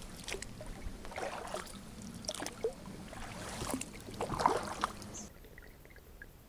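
Kayak paddle strokes: a double-bladed paddle dipping and splashing through lake water in irregular strokes. The sound drops suddenly to much quieter about five seconds in.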